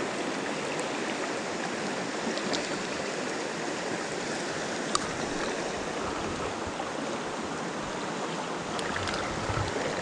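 Shallow mountain stream running steadily over rocks, heard close to the water. One small sharp click about five seconds in.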